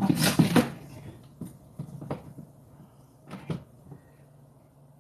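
Handling noise from working on the kayak: a quick run of knocks and rattles at the start, then a few single knocks, two of them close together about three and a half seconds in.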